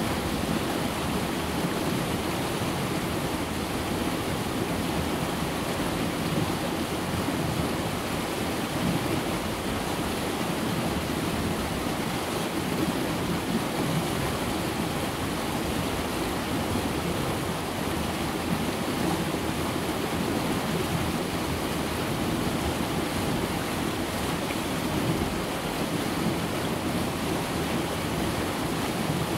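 The River Conwy rushing through rocky gorge rapids, white water pouring over and between worn rock ledges. A steady, unbroken rush of water.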